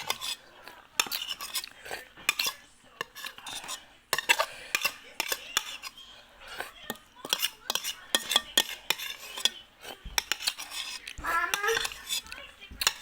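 A spoon clinking and scraping against a bowl in irregular sharp clicks while someone eats seblak, finishing the last of the bowl. A brief voice sounds near the end.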